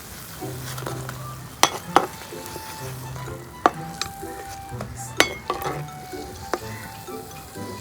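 Banana paniyaram frying in hot oil in a kadai, with a steady sizzle and several sharp metallic clinks of a spoon against the pan as the browned paniyaram are lifted out.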